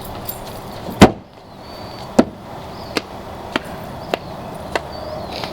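A loud sharp whack about a second in, followed by five lighter knocks at fairly even spacing that grow weaker, with faint high chirps in the background.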